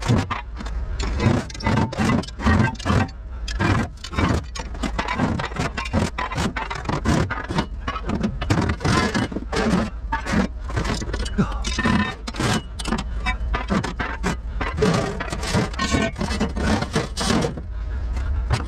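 Scrap metal unloaded by hand from a pickup's steel bed: brake rotors and steel pipes and rods clanking and scraping as they are thrown out and dragged, in a rapid, irregular run of clanks over a steady low rumble.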